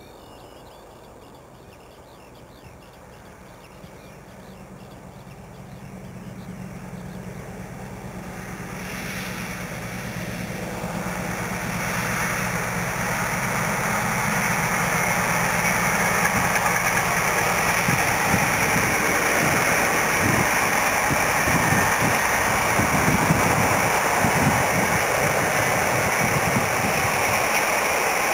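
Class 60 diesel locomotive's Mirrlees Blackstone engine running under power as it hauls a rake of tank wagons by, the steady engine note growing louder over the first fifteen seconds or so and then staying loud, with the rumble and hiss of the wagons on the rails.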